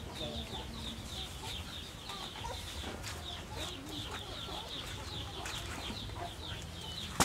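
Birds chirping, rapid short high chirps about four a second, with scattered lower calls over a steady low hum. A sharp click right at the end.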